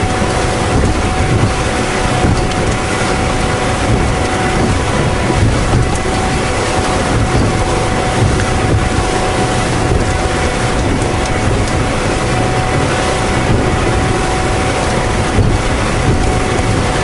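Honda 250 outboard running steadily as the boat travels at speed, with a constant whine, and strong wind buffeting the microphone.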